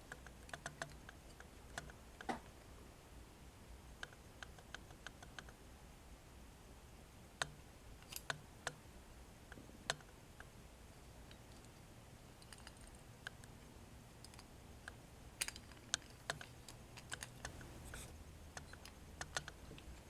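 Faint, scattered light clicks and taps from a small die-cast metal toy truck being handled and turned over in the hands, coming in small clusters with pauses between.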